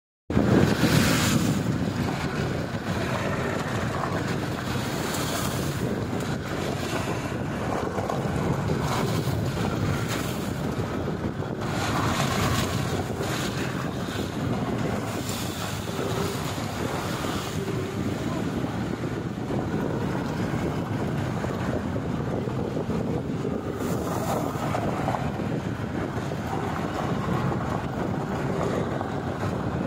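Off-road jeep driving slowly over a rough gravel track: a steady low rushing noise of engine and tyres on loose stones, with wind buffeting the microphone.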